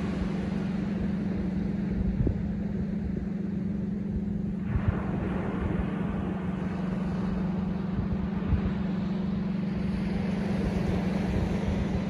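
Steady low rumble of ocean surf on a sandy beach, with a small wave breaking and washing up the shore from about five seconds in, adding a hiss.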